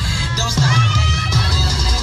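Pop dance music with a heavy, steady beat, with an audience starting to shout and cheer over it.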